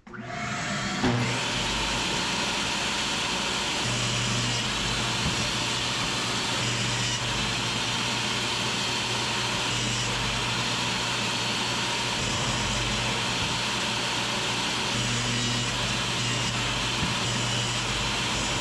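Table saw and its dust-collection vacuum starting up together, coming up to speed in about a second, then running steadily while a long mahogany board is ripped along the fence.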